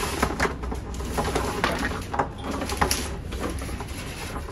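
Irregular scraping, rustling and light knocking of 6-gauge electrical wires being pulled by hand through conduit into the battery unit's wiring compartment.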